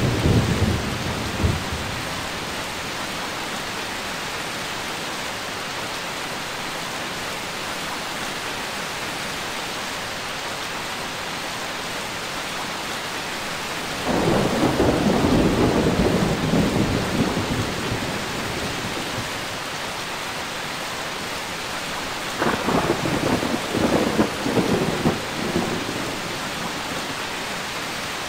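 Steady heavy rain hissing, with rolls of thunder: one fading out in the first couple of seconds, a longer rumble starting about halfway through, and another a few seconds before the end.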